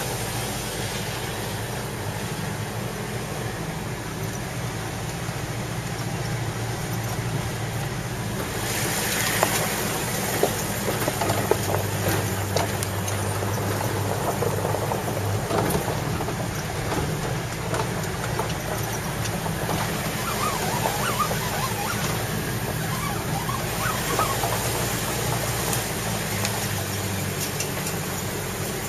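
Truck driving on a rough dirt road: steady engine and road noise with clattering knocks from the bumps, heaviest about ten seconds in.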